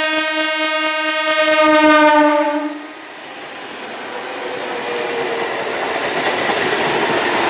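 ICF MEDHA electric multiple unit local train sounding a long, single-pitched horn that dips slightly in pitch as it cuts off about three seconds in. Then the wheels run on the rails as the coaches go past, the noise building steadily.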